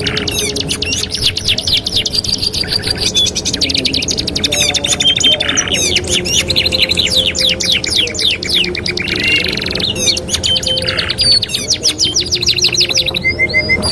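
Domestic canaries singing: long, fast trills of rapidly repeated notes alternating with short held whistles and buzzy notes, over a steady low hum.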